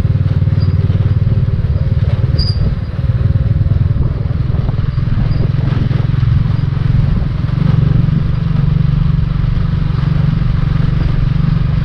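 Motorcycle engine running steadily at riding speed, a fast even pulsing low note that lifts slightly about eight seconds in.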